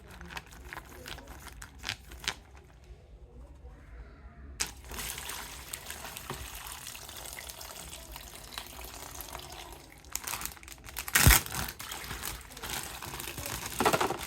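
Plastic toy packaging being handled and opened: scattered clicks, then a few seconds in a steady crackly rustling and crinkling, with a loud knock about eleven seconds in.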